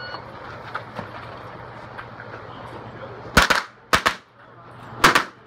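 A shot timer gives a short electronic start beep. About three and a half seconds later, a pistol-caliber carbine fires loud shots in three quick clusters of one or two rounds each.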